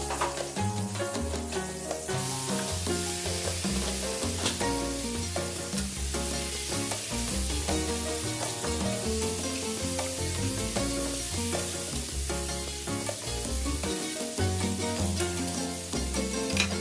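Squash pieces sautéing in a pan with garlic, onion and ginger, a steady sizzle, under background music.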